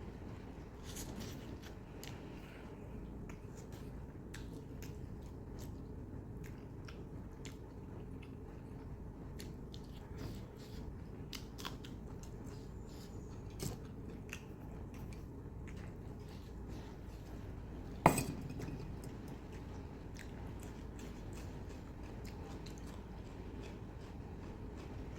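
A person eating: chewing, with small clicks and clinks of utensils and a dish, and one sharp loud clink about three quarters of the way through. A steady low hum runs underneath.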